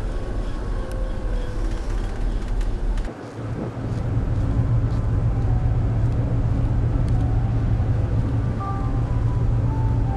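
Steady low rumble of a car ferry under way, first inside a lounge, then after a cut about three seconds in, a louder steady drone out on the open deck.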